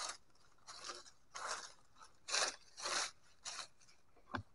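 Dry leaf litter crunching and rustling as a hand rakes through it, in about six short bursts, with one sharp knock near the end.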